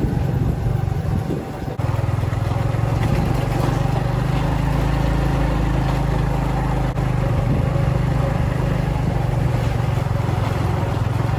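A vehicle engine running steadily as it travels at an even pace, with a brief dip in level about a second and a half in.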